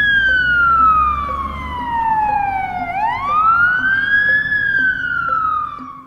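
Fire engine siren wailing: the pitch rises quickly, then falls slowly, twice, over a low rumble. A faint tick sounds about once a second, and the siren fades out near the end.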